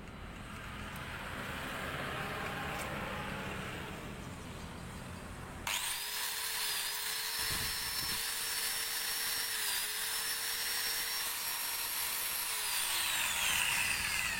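Maktec MT91 angle grinder, no disc fitted, switched on about six seconds in and running at a steady high whine. It is switched off near the end and winds down with falling pitch. This is a no-load test run after its repair for overheating and a rough running sound. Before it starts there is a duller, noisy rumble.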